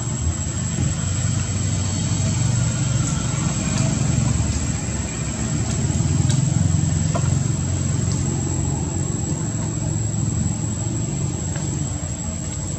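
Steady low rumble under a constant thin high-pitched tone, with a few faint clicks.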